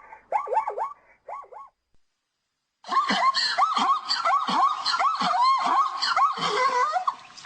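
Zebras calling in a rapid series of short, yelping barks, each rising and falling in pitch, several a second. After about a second of silence, a louder, denser run of overlapping barks begins, with a hiss behind it.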